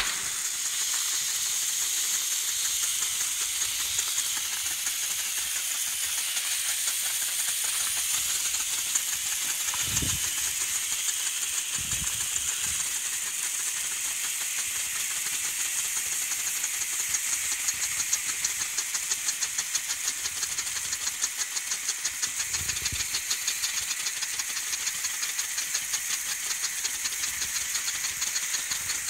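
Handheld pyrotechnic flares burning with a steady high hiss, a fine rapid crackle coming in about halfway through. There are a few brief low thumps.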